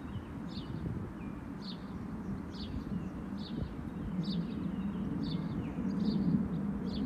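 A small bird chirping again and again, about once a second, over a low steady rumble that grows louder in the second half.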